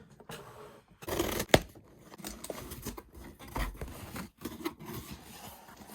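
Handling a shipping package: rubbing and scraping against it, with a sharp knock about a second and a half in.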